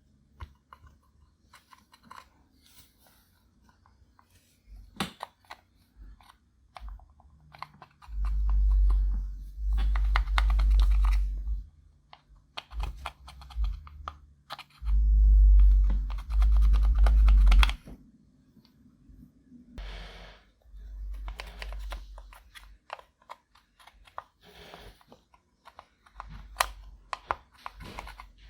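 Clear slime being worked by hand with eyeshadow mixed in: dense sticky clicks and small crackling pops. Two stretches of loud low rumble, each a few seconds long, come about a third of the way through and just past halfway.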